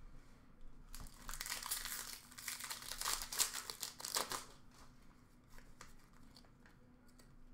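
Card pack wrapper crinkling and tearing as a pack of hockey cards is ripped open, in a run of crinkly bursts lasting about three seconds, followed by a few light clicks of cards being handled.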